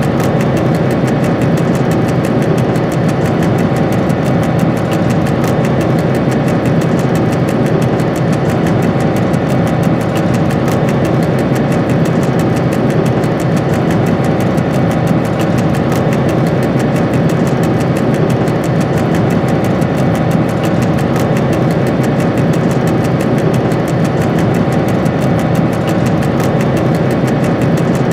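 Diesel engine of a Dr12 diesel-electric locomotive running steadily, heard from inside the driver's cab while the train is under way.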